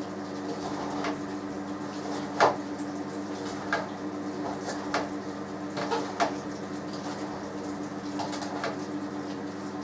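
Shredded cabbage and carrot being tossed and mixed by hand in a salad bowl: soft rustles with scattered sharper clicks and knocks, the loudest about two and a half seconds in. A steady low hum runs underneath.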